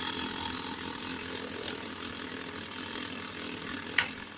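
IBM Model C electric typewriter running, its motor making a steady mechanical whir, with a single sharp click about four seconds in.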